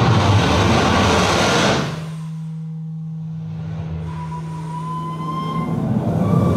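Experimental trumpet and live electronics improvisation: a steady low electronic drone, a loud rush of hissing noise for the first two seconds, then a thin high tone that rises slightly, and the noise swelling again near the end.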